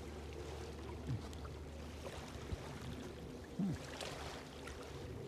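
Quiet shoreline ambience: small waves lapping gently at the edge of a sandy beach, over a steady low rumble, with a few faint short sounds.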